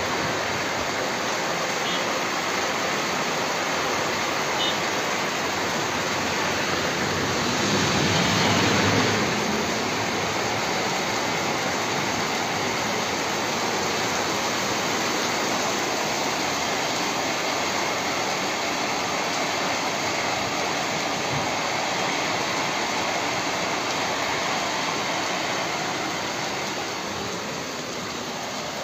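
Heavy rain pouring down in a steady hiss, with a brief louder swell about eight seconds in.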